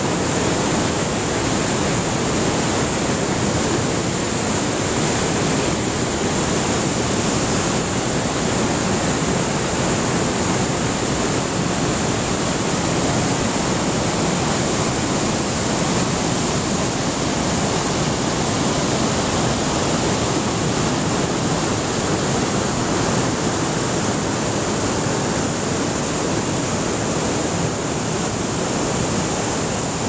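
The Rhine Falls: a large waterfall's plunging water and churning white water, making a loud, steady rush with no break.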